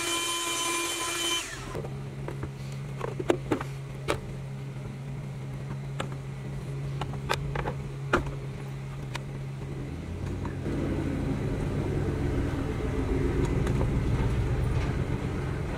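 A vacuum cleaner runs with a high whine while sucking dirt from around the fuel pump opening, then switches off about a second and a half in. After that come scattered light clicks and knocks as the fuel pump assembly is handled, over a steady low hum that grows louder and rougher about ten seconds in.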